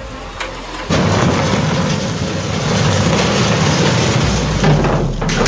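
Loud, rushing noise of wind and sea, cutting in abruptly about a second in and running on steadily.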